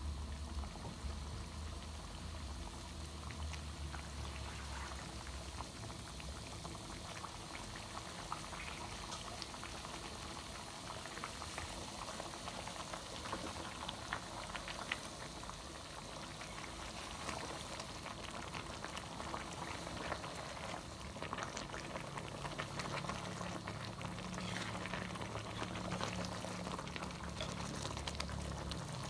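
Thick coconut-milk curry simmering in a wide metal pan, bubbling steadily with many small pops and crackles, over a low hum.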